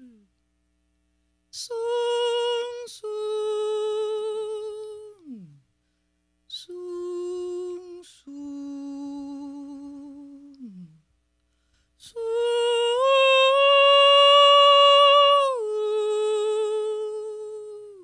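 A woman singing a wordless melody unaccompanied: long held notes with vibrato, several ending in a downward slide in pitch, in short phrases with brief pauses between. The highest and loudest note comes about two-thirds of the way through.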